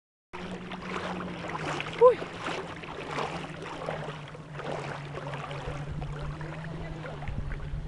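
Small boat's motor running with a steady low hum under the wash of water and wind. A brief, loud, high-pitched call cuts in about two seconds in.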